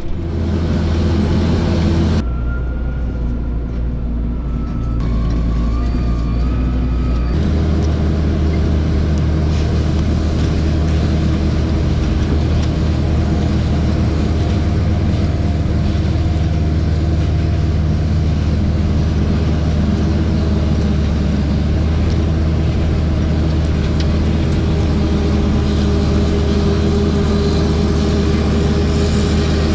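Heavy diesel farm machinery running steadily at harvest, a deep, even engine drone. The sound shifts abruptly about two seconds in and again about seven seconds in.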